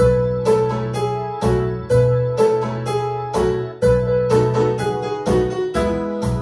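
Intro tune played on piano: a steady melody of struck notes, about two a second, over held bass notes, starting suddenly.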